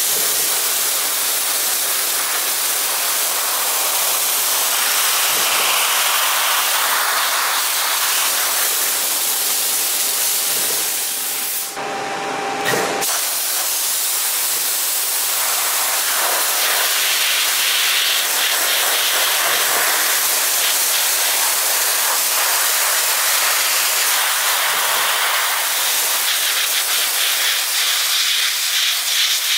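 Cold Jet Aero2 dry ice blaster jetting compressed air and dry ice pellets from its nozzle in a loud, steady hiss, cutting out briefly about twelve seconds in.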